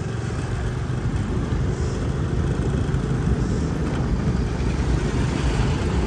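Motor traffic: engine and road rumble growing steadily louder as a bus draws up close alongside.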